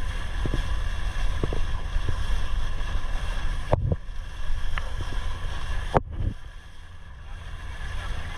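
Boat engine running steadily under wind on the microphone and water washing along the hull. Two sharp clicks come about 4 and 6 seconds in, and the sound drops lower for a while after the second.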